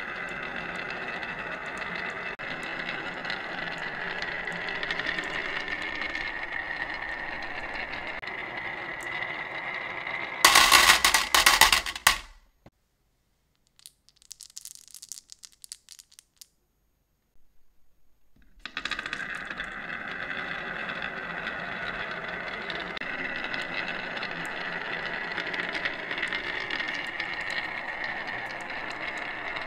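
A batch of marbles rolling down a wooden serpentine track, a steady rattling rumble. About ten seconds in it breaks into a loud clatter as the marbles drop into a metal tin toy truck. After several seconds of near quiet with faint handling clicks, a new batch starts rolling down the wooden track about nineteen seconds in.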